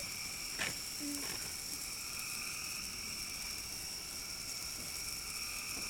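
Steady night chorus of frogs and insects: several high, unchanging tones that carry on without a break, with one faint click under a second in.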